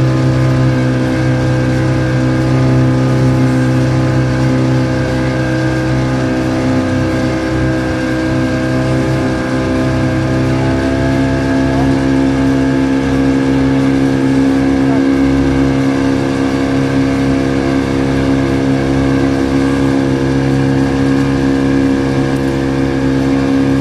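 A 40 hp outboard motor running steadily at speed, pushing the boat along. Its tone shifts slightly about ten seconds in.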